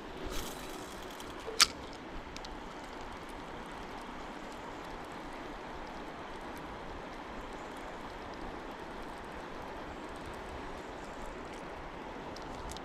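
A single sharp click from a spinning reel about one and a half seconds in, typical of the bail arm snapping shut after a cast. Steady faint background noise follows while the lure is retrieved.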